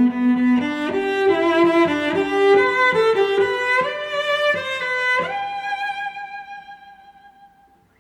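Background music on bowed strings: a melody of held notes that ends on one long note, fading out near the end.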